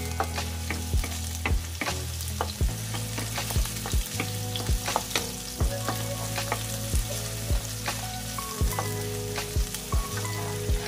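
Onion and garlic sizzling in hot oil in a pan while being stirred, the utensil tapping and scraping the pan in irregular sharp clicks about once a second, over a steady low hum.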